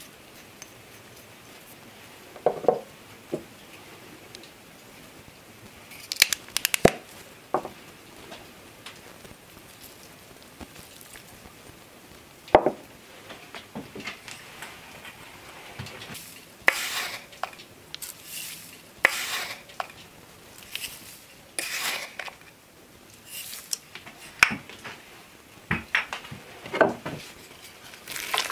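Cooking handling sounds: small ceramic dishes clink and are set down, and ingredients are tipped into a small metal cauldron. In the second half comes a run of short hissing pours as sugar is sprinkled over diced apples and rice. At the very end a wooden spoon starts scraping in the pot.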